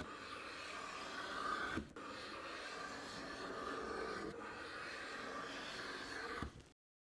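Luban hand plane taking smoothing strokes along a wooden panel: a steady shaving hiss in strokes of about two and a half seconds each, with short knocks between strokes. The sound cuts off abruptly near the end.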